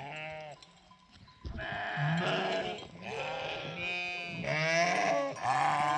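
Sheep bleating, several calls overlapping. One short bleat at the start, then after a brief lull a run of overlapping bleats from about a second and a half in.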